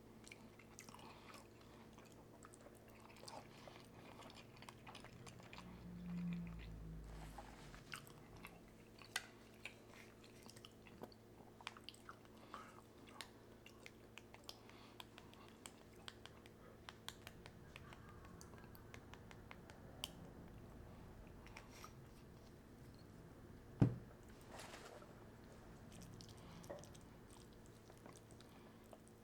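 Close-up chewing and mouth sounds of a person eating, with many small wet clicks. One sharp click about twenty-four seconds in.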